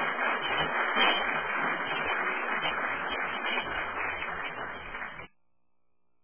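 Audience applauding, a dense even clatter of clapping that cuts off abruptly about five seconds in, leaving near silence.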